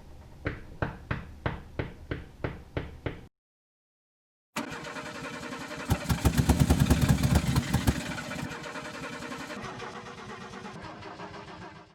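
An engine being cranked over in a steady rhythm of about three strokes a second, cut off abruptly. After a short break an engine runs, revs up about two seconds later, and then settles back down.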